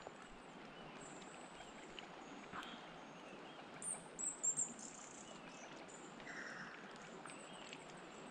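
River water running steadily, with small birds chirping high overhead and a few short sharp sounds about four seconds in.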